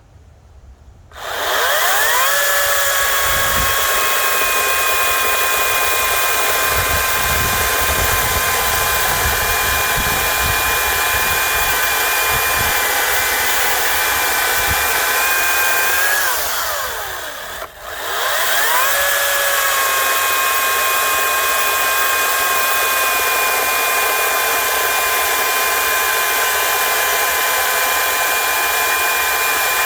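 Ryobi 40V 14-inch cordless brushless chainsaw cutting wood. Its electric motor spins up with a rising whine about a second in and runs at a steady high whine. Just past halfway it winds down and stops for a moment, then spins up again and runs on steadily.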